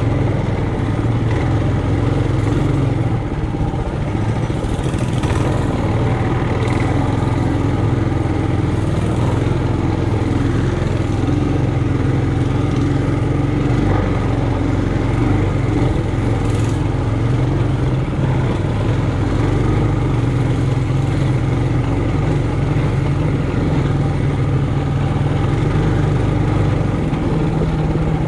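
Trailmaster Hurricane 200X mini bike's single-cylinder four-stroke engine running steadily at an even pitch.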